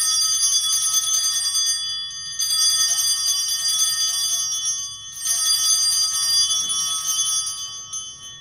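Altar bells rung three times at the elevation of the host after the consecration, about three seconds apart. Each ring is a bright jingle of several high tones that fades away before the next.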